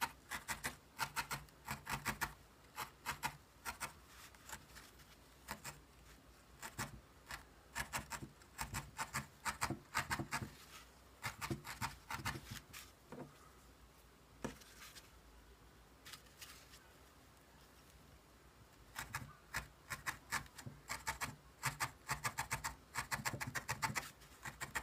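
Felting needle stabbing again and again through wool roving into a foam felting pad, a fast run of short scratchy pokes, as wool hair is felted onto a doll's head. The pokes thin out to a few scattered ones for several seconds in the middle, then pick up again near the end.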